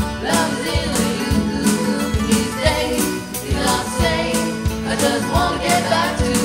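Pop song with singing over a steady drum beat.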